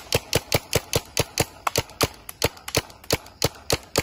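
Paintball marker fired in a rapid string of shots, about four to five a second, at a steady pace.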